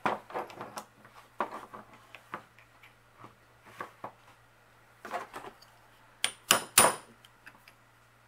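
Hammer tapping a steel pin punch to drive the worn pivot pin out of a SRAM Force AXS rear derailleur: light metallic clicks and taps as the punch and parts are handled, then two loud sharp strikes in quick succession near the end.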